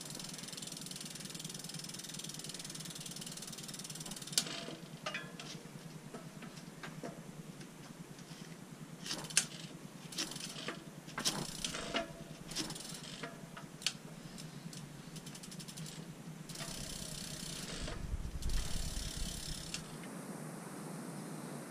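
Ratchet-like mechanical clicking and scattered knocks from bicycle parts being worked, with a low rumble near the end.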